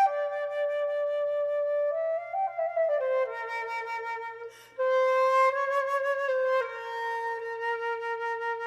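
Solo flute playing a slow melody of sustained notes, stepping down through a short phrase, breaking briefly for a breath a little past halfway, then holding a long low note.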